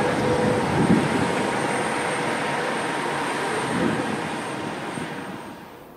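Jet aircraft engines: a steady rushing roar that slowly eases, then falls away sharply near the end.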